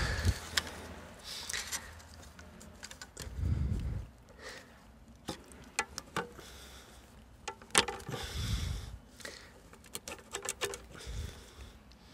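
Hands working a cone air filter onto a silicone intake hose: scattered plastic clicks, taps and rubbing, with a couple of dull bumps as it is wiggled into place.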